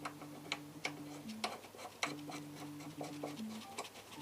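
Light, irregular metallic clicks and ticks of small brake-caliper parts, pad pins and a split-pin retaining clip, being handled and pushed into place. Behind them a faint low two-note tone pattern repeats about every two seconds.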